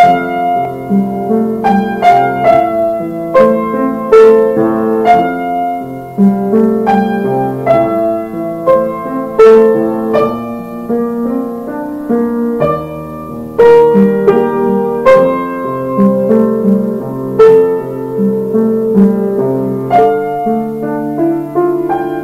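Background piano music: a melody of struck notes over a lower accompaniment.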